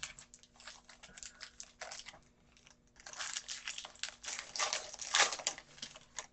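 Trading cards and their pack wrapper being handled: crinkling and rustling with small scrapes as cards are slid and shuffled, busiest in the second half.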